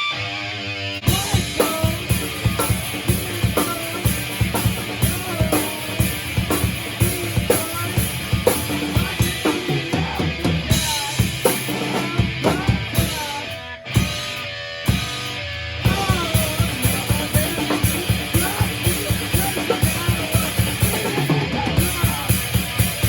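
Rock band playing loud in a rehearsal room: a drum kit pounding a steady beat under electric guitar through an amp stack. There is a brief break about two-thirds of the way through before the band comes back in.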